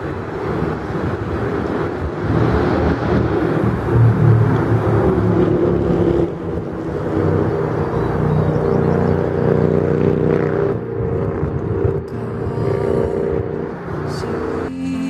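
Electric passenger train approaching along the track, a steady rumble of wheels on rail, with a steady humming tone joining in about halfway through.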